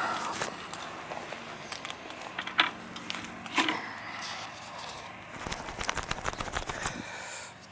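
Handling noise from a handheld camera rubbing against a shirt: rustling, with two sharp clicks about two and a half and three and a half seconds in, and a fast run of small clicks near the end.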